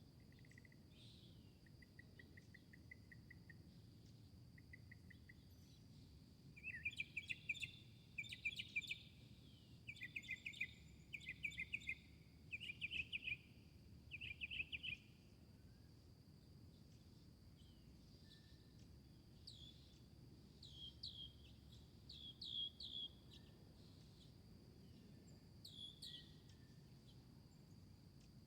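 Garden birds singing: a short rapid trill near the start, then a run of loud repeated song phrases, then sparser short falling chirps. Under them runs a steady high-pitched insect drone and a faint low rumble.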